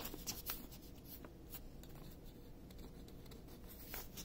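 Faint handling noises: a paper instruction sheet rustling and a few light taps and clicks as a wooden hanger rail is handled.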